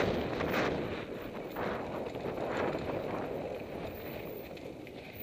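Mountain bike riding over a dirt and gravel trail: wind rushing over the camera microphone, with tyres crunching on loose gravel and short knocks and rattles from the bike over bumps, easing off toward the end.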